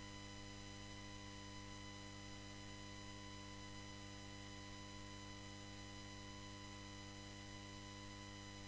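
Steady electrical mains hum and buzz from the sound system, unchanging throughout.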